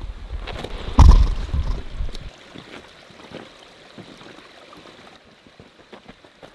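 Footsteps on a loose rocky trail, with scattered small crunches on stone. A low rumble with a loud thump about a second in dies away after about two seconds.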